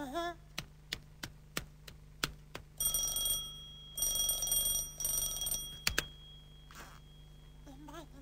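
A run of light clicks, then an electric doorbell ringing twice, a short ring and then a longer one, followed by a single click.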